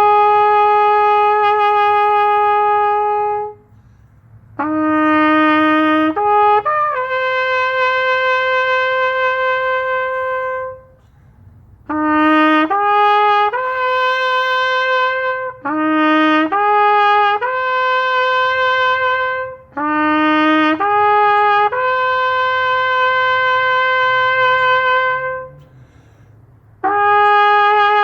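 Solo trumpet playing a slow bugle call of remembrance: short phrases of two or three rising notes, each ending on a long held note, with pauses between the phrases.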